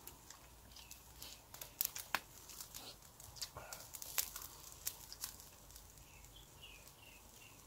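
Faint crackling of a wood bonfire, with scattered sharp pops. A few faint bird chirps come through, including a quick run of about five near the end.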